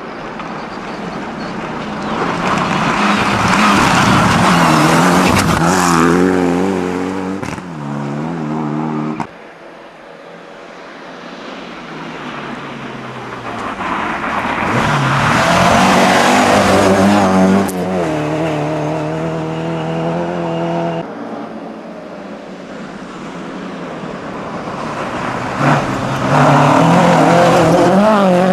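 Rally cars on a snowy gravel stage driven flat out past the roadside, one after another. Each engine note swells as the car approaches and steps in pitch with the revs. Three separate passes, the first two cut off suddenly.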